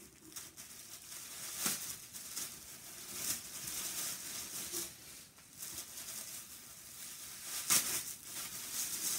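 Tissue paper rustling and crinkling as gifts are unwrapped, with sharper crackles about two seconds in and again near the end.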